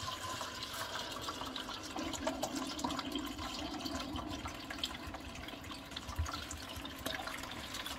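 Water pouring steadily out of an upturned plastic gallon jug into a large stainless steel stockpot, splashing onto soft soap paste as it is diluted.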